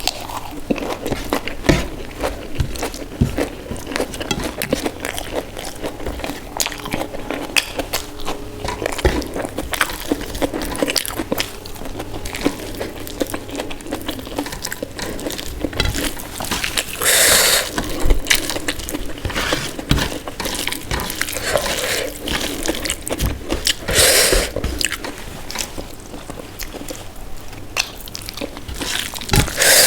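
Close-miked eating sounds: chewing and wet, smacking mouth noises from a meal of dal, rice and mashed potato, with a couple of louder, crunchier bites past the middle.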